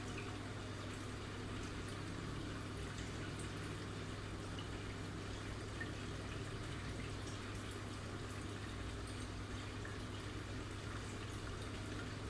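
Steady water sound from betta display tanks, running with scattered faint ticks over a constant low hum.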